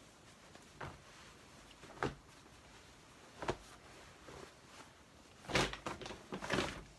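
Denim jeans being handled, set down and the next pair picked up: several short rustles and soft knocks, the loudest cluster near the end.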